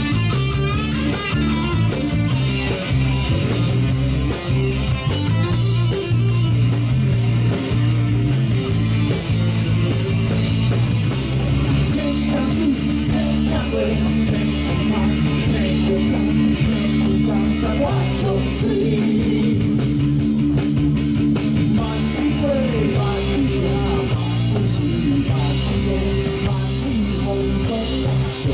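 Live rock band playing: electric guitar chords over a drum kit keeping a steady beat on the cymbals.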